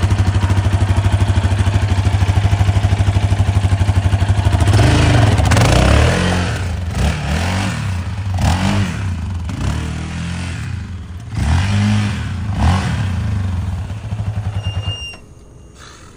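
Sport quad's engine running loud and steady close by, then revving up and down in a series of rising and falling sweeps as it is ridden off. The engine sound drops away sharply about fifteen seconds in.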